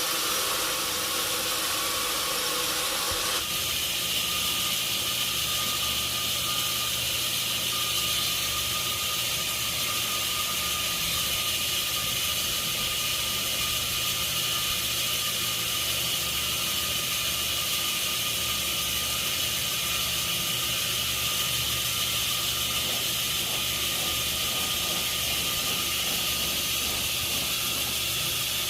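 Sawmill machinery running steadily: a loud hiss with a constant hum, whose tone shifts abruptly about three seconds in and then holds.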